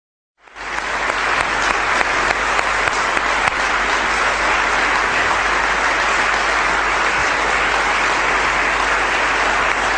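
Audience applauding: dense, steady clapping from many hands that swells up within the first half second.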